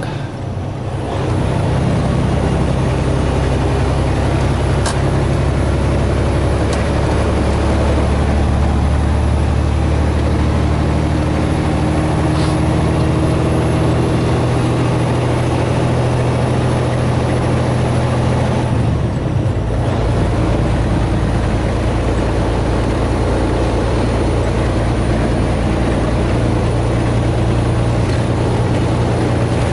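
Semi-truck engine running steadily under way, heard from inside the cab with road noise. About 19 seconds in, the engine note changes briefly, then settles into a steady drone again.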